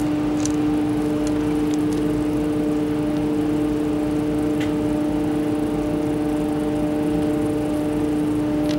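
Detachable quad chairlift's station machinery running with a steady multi-tone hum over a low rumble, with a few faint clicks.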